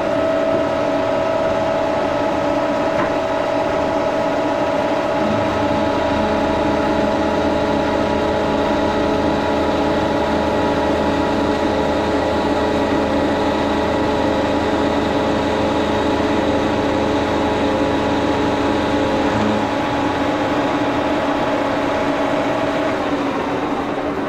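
1942 Brown & Sharpe No. 2 Plain milling machine running steadily, its cutter taking a 30-thousandths cut in aluminum, with a steady whine of several tones. A deeper hum joins about five seconds in and drops out around twenty seconds, and the whine fades near the end.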